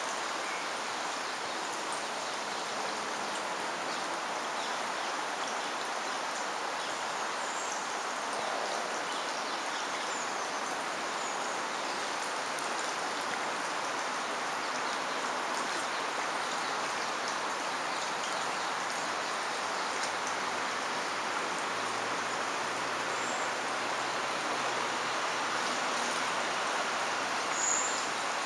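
Shallow chalk stream flowing over a riffle: a steady, even rush and patter of moving water, with a few faint high chirps now and then.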